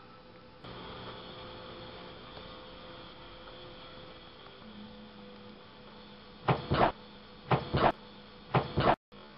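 A steady electrical hum with a thin steady tone. About six and a half seconds in come three loud double knocks, roughly a second apart, then the sound cuts off abruptly.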